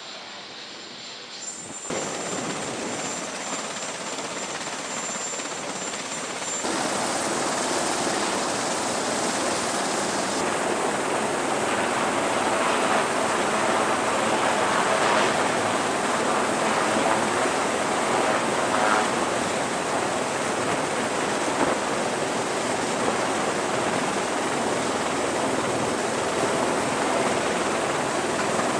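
Helicopter noise: a steady rotor and engine wash. It comes in abruptly about two seconds in, jumps louder again about seven seconds in, then holds loud.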